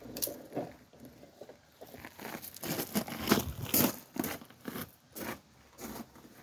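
Irregular clicks, taps and scrapes of metal brake parts and tools being handled, busiest in the middle.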